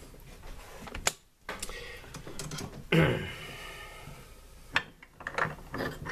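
Raymarine ST4000+ autopilot drive gearbox given brief bursts of power, its small motor and plastic planetary gears clattering and clicking, with a louder noisy burst about three seconds in. It is the gearbox the owner finds noisy.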